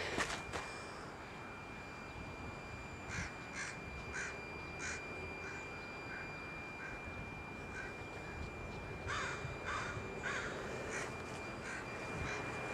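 A bird calling in two bursts of about four short, evenly spaced calls each, over a steady faint high whine.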